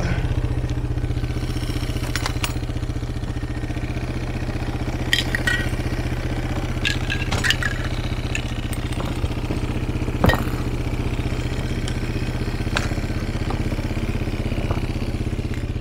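ATV engine idling steadily. A few sharp clicks and clanks come as empty spray paint cans are handled and set down on its hard plastic rear cargo box.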